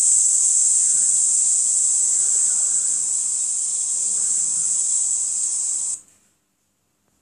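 Steady high-pitched insect chorus that cuts off suddenly about six seconds in.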